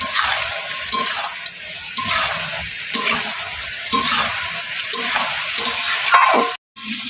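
Metal spatula scraping and stirring chicken pieces in an aluminium kadai, the meat frying and sizzling in the water it has released as that water cooks off. The scrapes come about once a second, and the sound drops out for a moment near the end.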